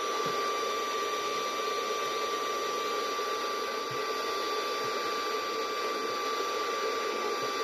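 Untuned FM radio static from a small Bluetooth speaker: a steady hiss with a thin, steady whine running through it.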